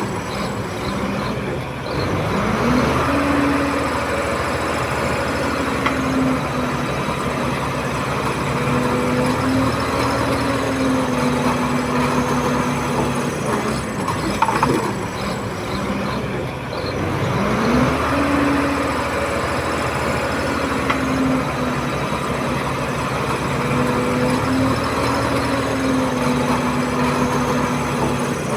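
Komatsu D31P bulldozer's diesel engine running hard, revving up about two seconds in and again about halfway through, then holding its pitch with small dips. A few short knocks sound along the way.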